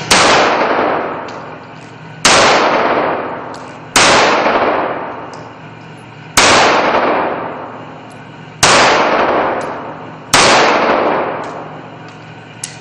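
Six single 9mm pistol shots fired from a POF Eye corner-shot weapon, spaced about two seconds apart. Each shot rings out with a long echo that fades in the enclosed indoor range.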